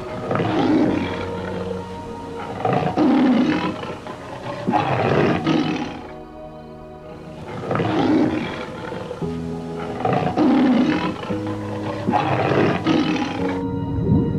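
A large animal giving a series of rough, noisy calls, one every second or two, over background music with held notes. The call sequence breaks off about six seconds in and then plays again.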